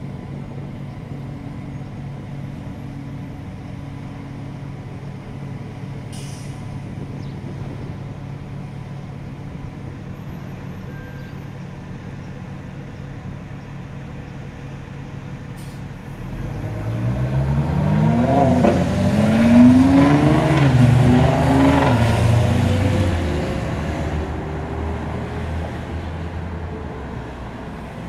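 Steady low hum of idling engines, then, a little past halfway, a tuned Nissan GT-R's twin-turbo V6 accelerating hard from a standstill. Its pitch climbs and drops back several times through the gear changes, loudest a few seconds after it sets off, then fades away.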